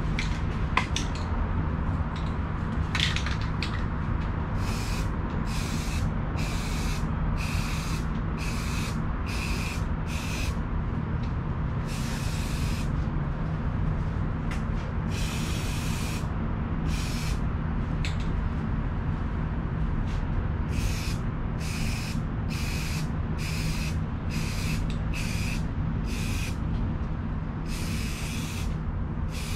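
Paint being sprayed in short passes: about twenty hisses of half a second to a second each, a few of them longer, over a steady low hum.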